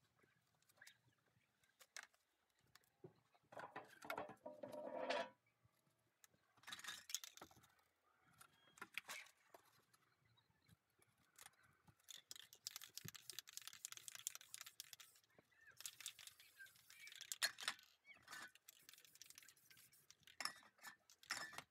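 Faint spray-paint aerosol can hissing in several stretches, the longest about four seconds, as black paint is sprayed along the edge of a paper mask, with scattered clicks and rattles from handling the can. A louder rustle about four seconds in comes from handling the paper mask.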